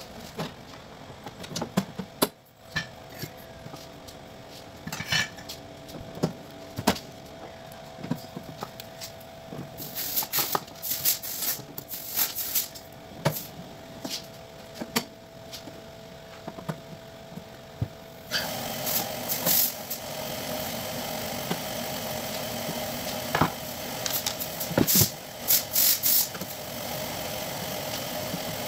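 Sheet-metal cover and screws of an electrosurgical unit being handled and fitted back on: scattered clicks, knocks and rattles of metal. A steady hum comes in about two-thirds of the way through.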